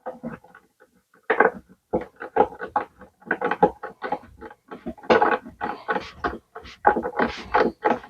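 A wood screw being started by hand with a screwdriver through a furniture hinge into a stripped hole rebuilt with epoxy and toothpicks: a rapid, irregular run of small clicks and creaks that begins about a second in.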